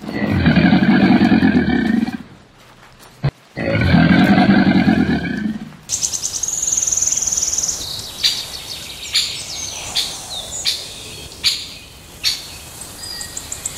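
Crocodile growling twice, each deep growl lasting about two seconds. About six seconds in it stops, and a high trill, sharp clicks and scattered chirps follow.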